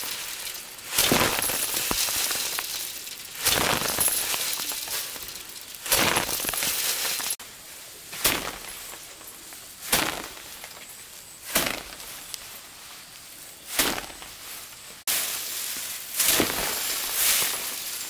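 Rice stalks being harvested by hand: a dry crunching rustle of stalks, repeated in strokes about every two seconds, over a steady hiss that shifts abruptly twice.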